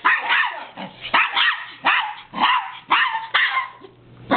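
A Yorkshire terrier barking repeatedly at a remote-controlled toy rat, short high-pitched barks at about two a second, easing off in the last half-second.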